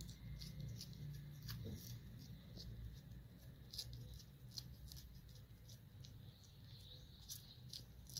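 Kitten eating from a foil packet held in the hand: faint, irregular small clicks of chewing and licking, over a low steady hum.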